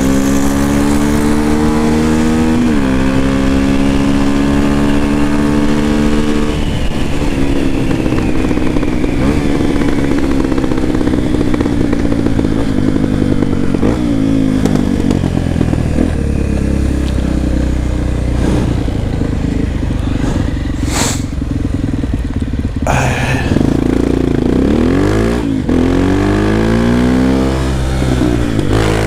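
Honda XR250 Tornado's air-cooled single-cylinder four-stroke engine, heard from the rider's seat while riding in traffic. The engine note climbs and drops at each gear change early on, then falls slowly as the throttle eases off. After a couple of short sharp clicks or knocks, it revs up and down through the gears again near the end.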